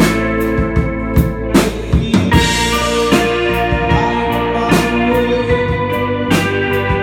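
A band playing live, an instrumental passage with no singing: a drum kit beats out a steady rhythm with kick and snare under sustained held chords.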